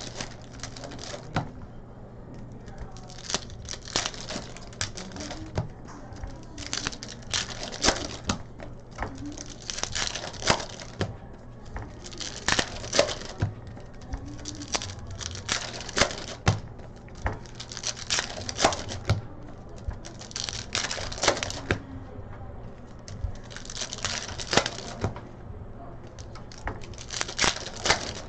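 Trading-card packs and cards being handled: wrapper crinkling and tearing, and cards slid and flicked through, in short rustling bursts every two or three seconds with sharp clicks between them.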